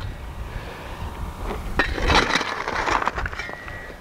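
Steel shovel blade scraping and scooping broken rock and gravelly dirt off bedrock, with rock chips clinking. The blade strikes sharply just under two seconds in, starting the loudest gritty scrape.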